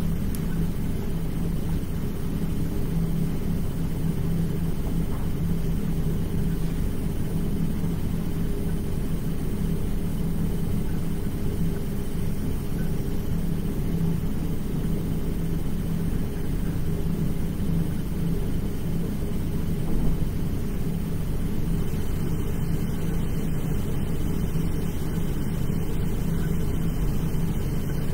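Steady low hum and rumble, with one brief knock about twenty seconds in.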